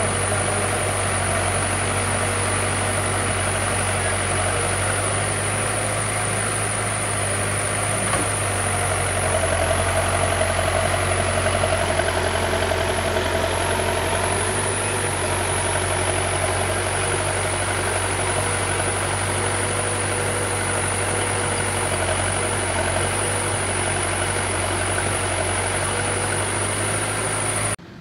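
Diesel engine of an Escorts backhoe loader running steadily while it works, growing a little louder for a few seconds near the middle, then cut off suddenly near the end.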